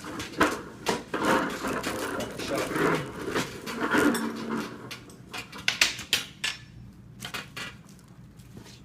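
Rustling, knocking and clicking of equipment being handled. It is busiest in the first four seconds, with a few sharp clicks around six seconds in, then it quietens.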